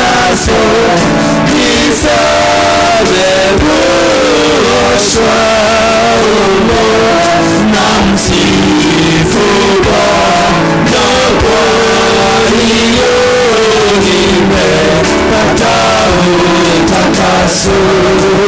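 Church praise team and congregation singing a gospel song with band accompaniment, loud and steady throughout.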